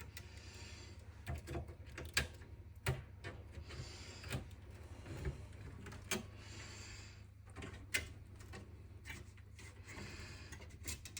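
Faint handling sounds from hands working cables and parts in a desktop PC case: scattered light clicks and knocks with short rubbing scrapes, over a steady low hum.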